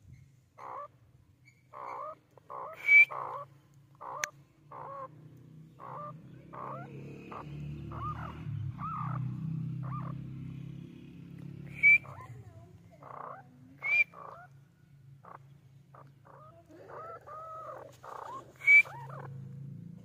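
Grey francolin calling: a long series of short clucking notes, one or two a second, broken four times by a much louder sharp, high note. The last of these, near the end, is the loudest.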